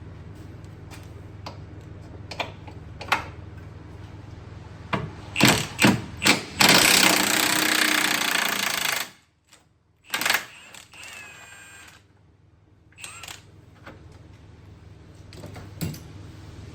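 Pneumatic impact wrench working the bolts on a car's suspension arm. A few short trigger blips come first, then a loud rapid hammering run of about two and a half seconds, with scattered knocks and clicks of tools before and after, over a steady low hum.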